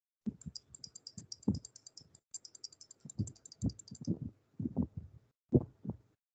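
Computer keyboard and mouse clicking: scattered separate clicks, with a fast run of light, high ticks over roughly the first four seconds.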